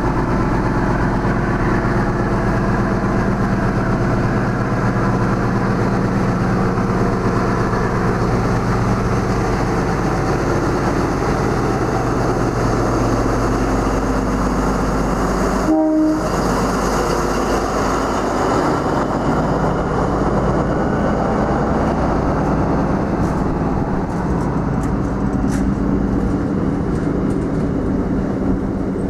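XPT diesel power car running as it rolls slowly by, its engine tone strongest in the first dozen seconds and then fading. The stainless-steel passenger carriages follow, rumbling over the rails with light wheel clicks. A brief pitched tone sounds about halfway through.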